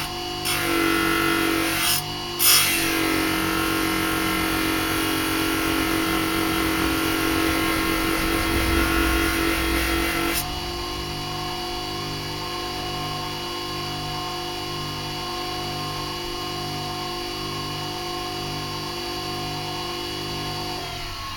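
Grinder motor spinning a deburring wheel with a knife blade held against it to take off scale: a steady motor hum under a rough grinding hiss. The blade lifts off twice briefly in the first few seconds. About ten seconds in it comes away for good, and the wheel runs on freely and more quietly.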